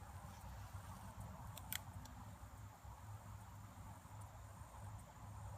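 Near silence: faint outdoor background with a low rumble, and one short faint click a little under two seconds in.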